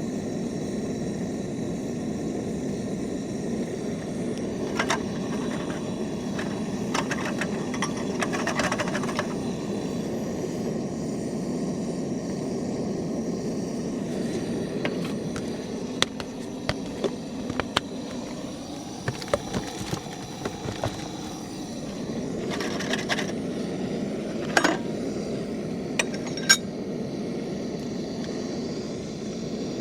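Scattered clinks, taps and scrapes of cups and utensils being handled while coffee is made, over a steady low rushing noise.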